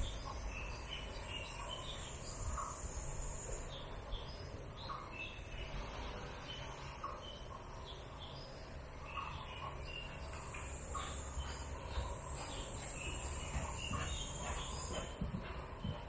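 Outdoor ambience: a continuous high-pitched insect drone that shifts pitch a few times, with short bird calls repeating every couple of seconds, over a low rumble.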